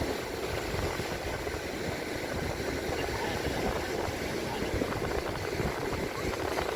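Steady wind rumbling on the microphone outdoors, with faint voices in the background.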